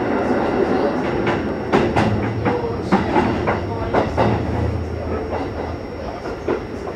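Sanyo Electric Railway 6000 series electric train running, heard from inside the passenger car: a steady low rumble with irregular sharp clicks of the wheels over rail joints.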